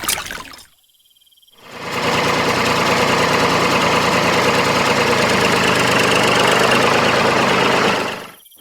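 An engine running steadily at idle. It fades in after a brief silence about a second in and drops away near the end.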